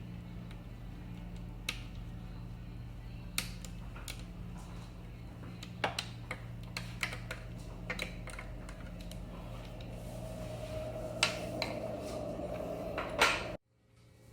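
Scattered light metallic clicks and clinks of hand work on an electric scooter's wheel axle and its nuts, over a steady low hum. The sound cuts off abruptly near the end.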